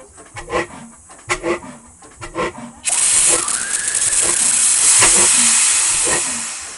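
Restored 1953 Ruston & Hornsby 9X class HR engine running slowly, with a regular double knock about once a second. About three seconds in, a sudden loud hiss starts over the beat and fades near the end.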